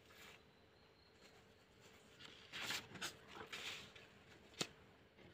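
Faint rustling of paper sheets being handled, in a couple of short spells about halfway through, followed by a single sharp click.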